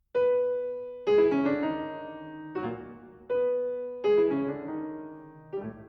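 Background piano music: single struck notes and chords ringing out and fading, a short phrase played and then repeated.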